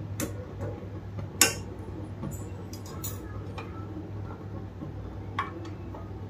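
A few light clinks of a steel spoon against a steel saucepan holding jalebis in sugar syrup, the loudest about one and a half seconds in, over a steady low hum.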